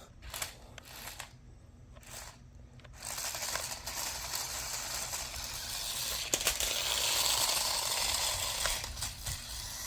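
Toy remote-control tracked stunt car driving: its small electric motors and plastic tracks make a steady rattling whir that starts about three seconds in, after a few faint clicks.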